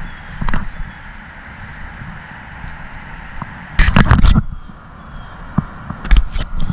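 A finger rubbing and knocking against the action camera's lens and housing, right at the microphone: loud scraping handling noise for about half a second about four seconds in, and again briefly about six seconds in.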